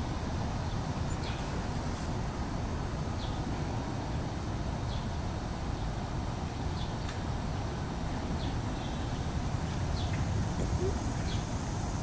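A steady low rumbling noise with faint, short, high chirps every second or two.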